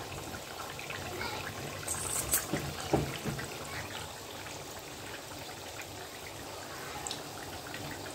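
Vegetables bubbling in liquid in pots on the stove: a steady bubbling, with a few light clinks and a knock about two to three seconds in.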